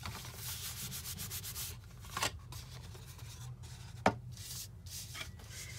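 Hands rubbing firmly over a cardstock panel to press it onto the tear-and-tape adhesive on a paper card box: a dry, scratchy paper rubbing for the first couple of seconds. Then paper handling as the box is turned over, with a sharp tap about four seconds in as it is set down on the table.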